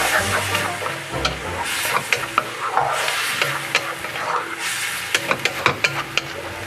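Prawns, vegetables and a freshly cracked egg sizzling in a hot wok while a wooden spatula stirs them, scraping and tapping against the pan. The taps come more often near the end.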